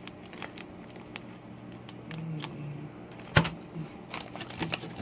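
Small plastic bags of electronic components being handled, giving scattered light clicks and crinkles, with one sharper click about three and a half seconds in.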